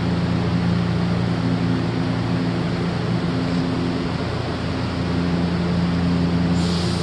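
Odakyu electric commuter train standing at the platform, its on-board equipment giving a steady hum of several low tones over a general rumble. A short hiss cuts in near the end.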